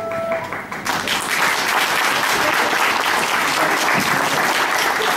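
A held flute note ends just after the start, then audience applause begins about a second in and carries on steadily.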